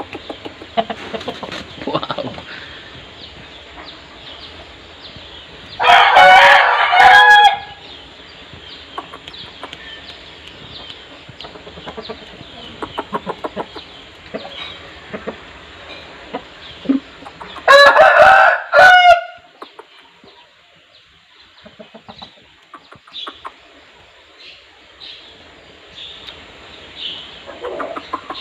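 Rooster crowing twice, about six seconds in and again about eighteen seconds in, each crow lasting about a second and a half. Soft, short clucks come between the crows.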